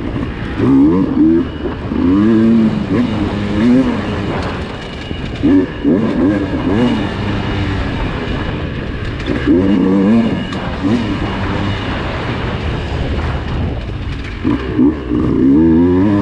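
Dirt bike engine revving up and falling back again and again as the throttle is worked through tight trail, in bursts about every one to three seconds. Occasional short knocks and clatter sound between the revs.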